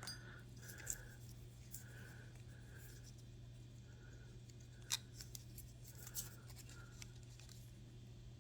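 Faint clicks and light metallic taps of 90% silver Walking Liberty half dollars being handled one at a time out of a coin roll, with a sharper click about five seconds in, over a steady low hum.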